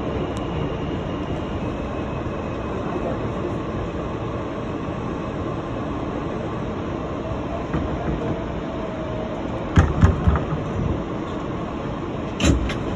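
New York City subway F train running express through a tunnel, heard from inside the rear car: a steady rumble of wheels on the rails. There are a few sharp clanks about ten seconds in and again near the end.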